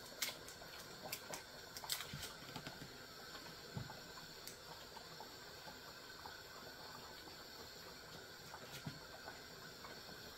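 A pot of chicken soup boiling on the stove: a faint, steady hiss, with a few light, sharp clicks scattered through, the strongest near the start and about two seconds in.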